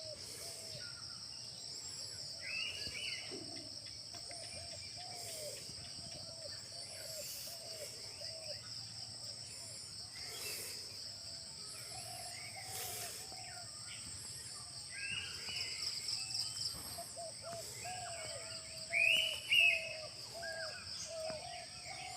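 Morning outdoor ambience: several birds calling and chirping over a steady high-pitched insect drone. Two louder bird calls stand out about three-quarters of the way through.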